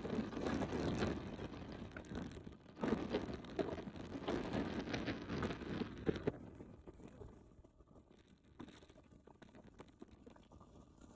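Wind buffeting and crackling on the microphone as it is carried along the road at speed, dying down about six seconds in.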